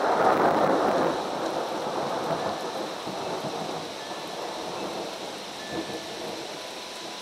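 Rain falling steadily on trees, under a rumble of thunder that is loudest at the start and dies away over the first few seconds.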